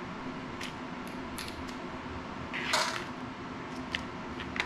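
Small clicks and light clinks of tiny drone parts and hand tools being picked up and set down on a workbench, with one louder brief noise about halfway through. A steady hum runs underneath.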